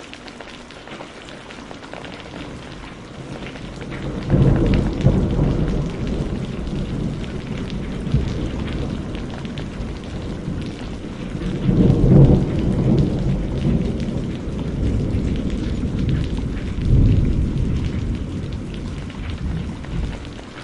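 Thunderstorm: steady rain falling, with rolling thunder that starts about four seconds in and swells twice more before dying away near the end.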